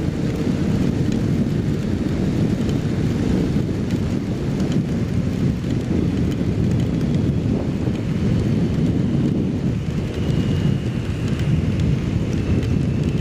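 Steady, loud wind rumble buffeting the microphone of a Kawasaki Z750 motorcycle riding at highway speed in the rain. A faint high whistle joins in near the end.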